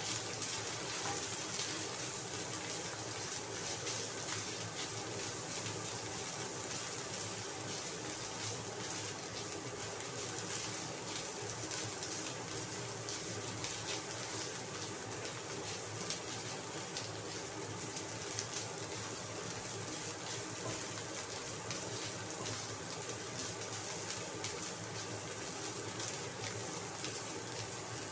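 Chopped dried radish sizzling in hot oil in a wok as it is stir-fried with a spatula: a steady hiss with fine crackling throughout.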